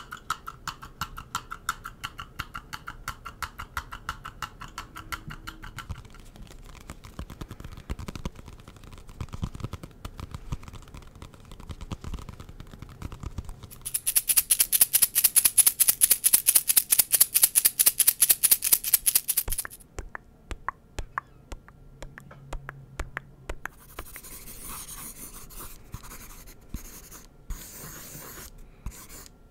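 A series of close-miked ASMR trigger sounds. It starts with fast, even tapping or clicking, then comes a loud, fast scratching for about six seconds midway, which is the loudest part. Near the end there is pen or pencil scratching on notebook paper.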